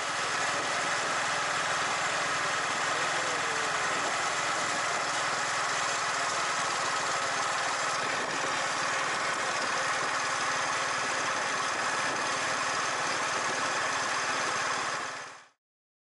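Motorcycle engine running steadily while riding, mixed with steady wind and road noise; it fades out quickly near the end.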